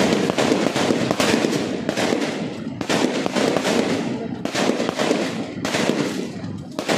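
Repeated gunshots: sharp cracks about every second or so, each trailing off in an echo, over a steady din of activity.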